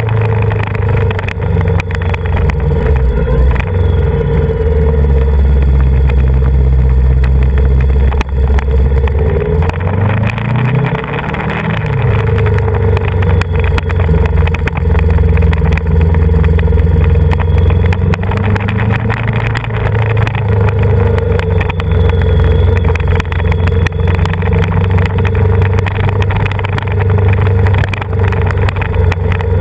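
Yamaha VMAX 1700's V4 engine running as the motorcycle rides a winding mountain road. About a third of the way in, the engine note drops as the bike slows for a hairpin bend, then rises again as it accelerates out and settles back to a steady pull.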